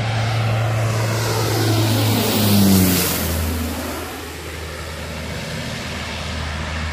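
Twin-engine turboprop airliner passing low overhead, its propeller drone dropping in pitch as it goes by, loudest a little under three seconds in and then fading to a steadier, softer drone.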